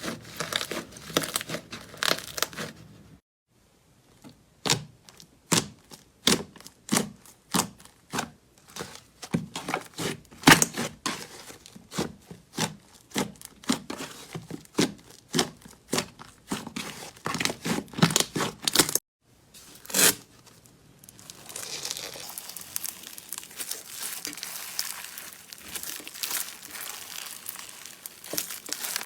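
Slime being handled by hand: rapid crackling, clicking and tearing sounds, with short pauses about 3 seconds in and again about 19 seconds in, then a finer, denser crinkling in the last third.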